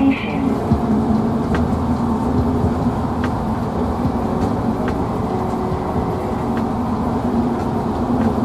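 Bombardier ART single-car linear-motor light-rail train running at speed, heard from inside the car: a steady hum and rumble of the running train, with a faint tick every one and a half to two seconds.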